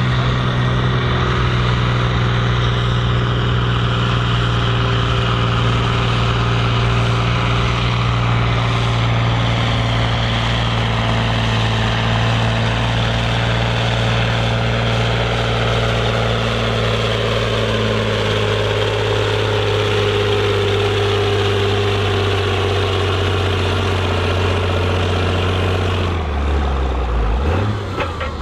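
Case IH Magnum 8950 tractor's six-cylinder diesel engine running steadily at low revs, with a whine that falls slowly in pitch through the second half. Near the end the engine note drops and changes.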